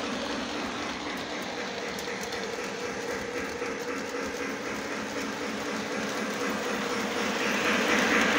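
Model train set running on its track: a steady whir from the train's motor and wheels, growing louder near the end as the train comes back close.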